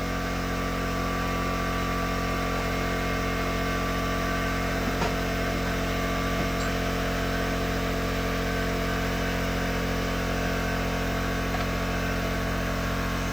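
Steady electrical or mechanical hum made of several fixed tones over a low hiss, with one faint click about five seconds in.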